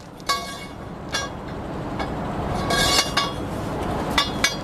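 A handful of metallic clinks, each ringing briefly, from the steel pipe extension and wrench shifting on the hub nut and jack stand as weight is put on the bar to break loose an overtightened trailer hub nut, over a steady hiss that slowly grows louder.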